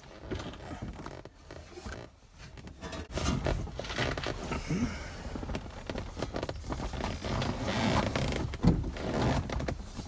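Scraping, rubbing and knocking of a steel car bumper being handled and lined up, in irregular bursts that get busier and louder about three seconds in.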